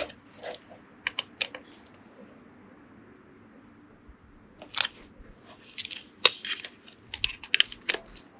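Small torque wrench doing up the screws on a 1996 Suzuki GSX-R750 fuel pump mounting plate to 5 Nm: scattered sharp clicks and light metal taps of the tool and screws. There is a quiet spell about two seconds in, then a quick run of clicks from about five seconds in.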